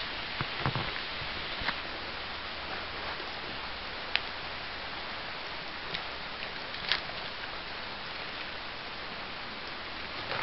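Steady hiss of rain, with a handful of sharp clicks and knocks as a plastic canteen is worked out of its canvas pouch.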